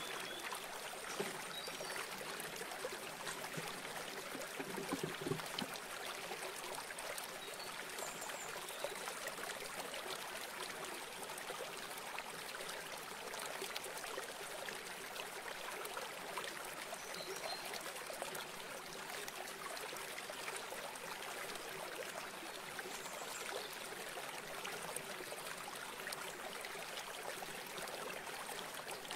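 River water running steadily over rocks, an even rushing flow, with a few soft knocks about five seconds in.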